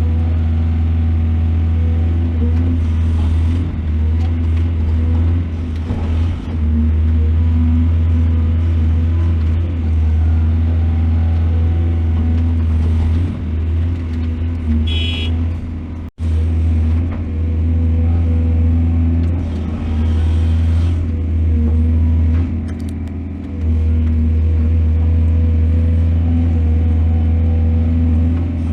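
Heavy excavator's diesel engine running steadily with a deep hum, its level dipping a few times as the load changes. A short high-pitched tone sounds about fifteen seconds in, and the sound drops out for an instant just after.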